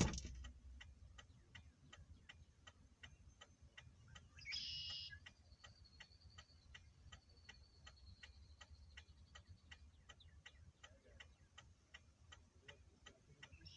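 Faint, steady ticking of a parked car's hazard-light flasher relay, with a brief hiss about four and a half seconds in.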